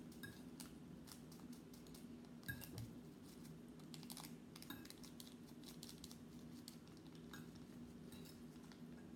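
Faint scattered clicks and light crinkling: a fork stirring instant noodles on a plate and a seasoning-powder packet being shaken and crinkled, over a steady low hum.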